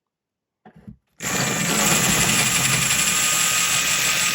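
Electric drill starting about a second in and running steadily at speed, its multi-purpose bit boring on into plasterboard once through the wall tile.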